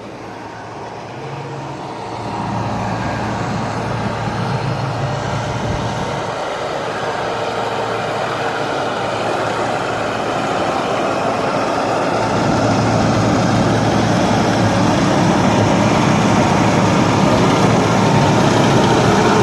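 Engine of a farm machine cutting green oats, running steadily and growing gradually louder.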